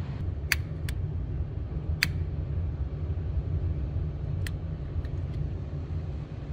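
Small wood bonfire crackling, with a few sharp pops spread out over the seconds, over a steady low rumble.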